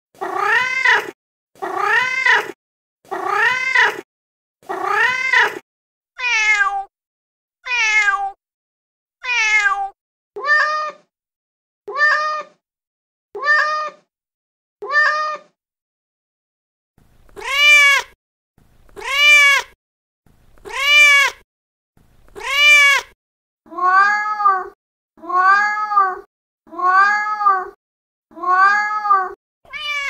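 Recorded domestic cat meows played back from a cat-sound app, one meow about every second and a half, mostly rising then falling in pitch. The voice changes several times as different samples play, with a pause of about two seconds near the middle.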